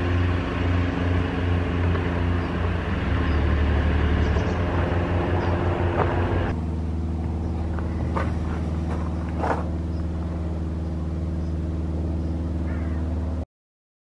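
A vehicle engine idling with a steady low hum, which changes in tone about six and a half seconds in. A couple of short knocks are heard near the end, and the sound cuts off suddenly just before the end.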